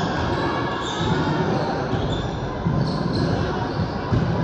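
Basketball game on a hardwood gym court: the ball bouncing as players dribble, with sneakers giving short high squeaks, over a steady din of the crowd in the echoing gym.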